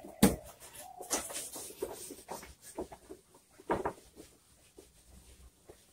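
A whiteboard being wiped clean with an eraser: a series of short, uneven rubbing strokes across the board.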